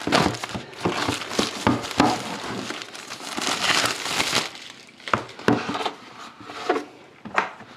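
Clear plastic shrink wrap crinkling and crackling as hands peel it off a sealed cardboard box of trading cards. The crinkling is dense for the first few seconds, then thins to scattered crackles and light taps.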